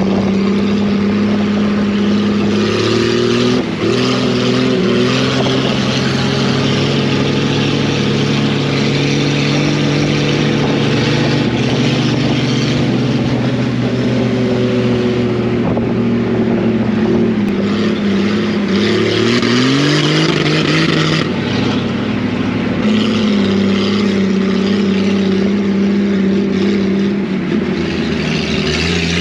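Vehicle engine running steadily under load, with its pitch rising twice as it accelerates: once about two-thirds of the way through and again near the end.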